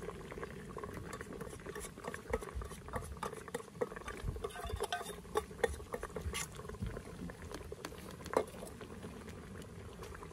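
A pot of soup simmering, with a steel ladle stirring in it and clinking against the aluminium pot many times in the middle, and one sharper clink near the end. Curry roux is being stirred into the pot-au-feu broth.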